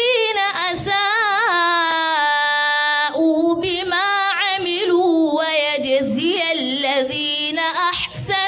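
A young woman reciting the Qur'an into a microphone in the melodic tajwid style. Her voice is drawn out in long ornamented, wavering notes, with one note held level for about a second starting two seconds in.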